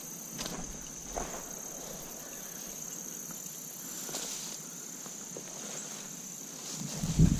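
A steady high-pitched insect chorus, with soft swishes of footsteps through tall grass. Near the end a loud low rumbling noise sets in on the microphone.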